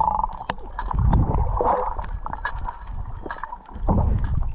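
Sea water sloshing and gurgling around a waterproof action camera held at the surface, dipping in and out of the water, with small splashes and bubble clicks. The sloshing swells louder about a second in and again near the end.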